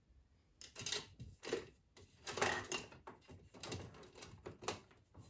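Makeup brushes and products being rummaged through on a tabletop to pick out a brush: an irregular string of light clicks, knocks and rustles.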